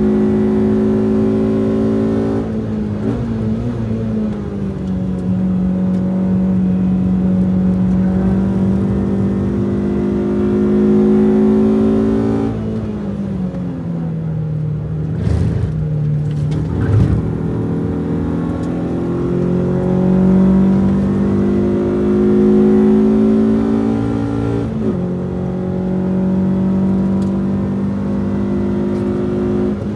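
Renault Twingo RS's engine, heard from inside the cabin, pulling hard on track. Its pitch climbs steadily, then drops abruptly at the upshifts, about two seconds in and again near the end. Around the middle the revs fall away as the driver lifts and uses engine braking to save the fading front pads, with a couple of sharp knocks, before the engine pulls up through the revs again.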